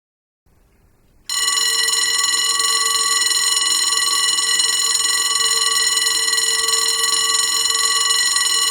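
Railroad crossing bell ringing continuously at a rapid, even rate, starting abruptly about a second in.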